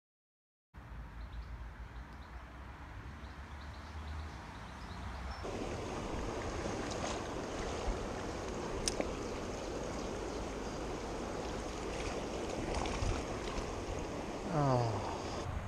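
River water running steadily. It cuts in abruptly about a second in and grows louder about five seconds in, with one sharp click partway through.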